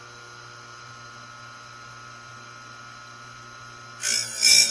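Electric grinder used to sharpen a bandsaw blade, its motor running with a steady hum, then about four seconds in a short, loud, harsh grinding as the wheel is put to a tooth.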